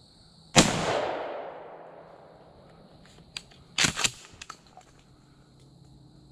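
A single gunshot, sharp and loud, its echo rolling away through the woods over about a second and a half. A few sharp clicks and knocks follow about three to four seconds in.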